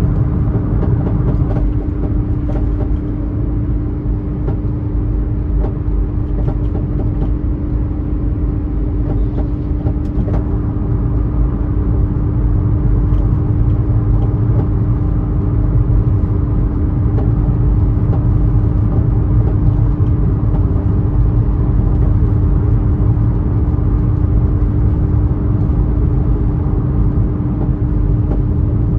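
Steady in-cabin road and engine noise from a 2016 Jetta with the EA211 1.4 turbo four-cylinder, driving along with a low rumble and a steady hum. A few faint clicks come through, but no loud knock stands out.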